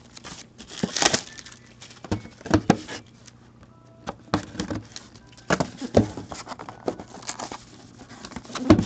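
Plastic shrink wrap crinkling as it is stripped off a sealed cardboard box of trading cards, then a small blade slitting the box's seal and the cardboard scraping and tapping as the box is handled. The sounds come as short, scattered rustles and clicks about a second apart over a faint steady hum.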